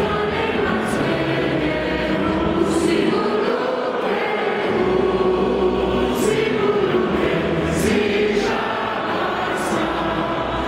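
Many voices singing a national anthem together in a slow melody of long held notes, a stadium crowd joining in.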